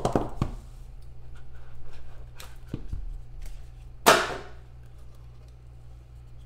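A trading-card box being handled on a tabletop: short knocks and scrapes, with one sharp, loud knock about four seconds in.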